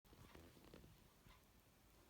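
Near silence: room tone, with a few faint soft knocks in the first second.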